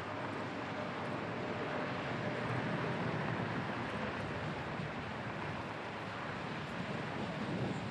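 Steady outdoor background noise: an even low rumble and hiss, with wind on the microphone and no distinct event.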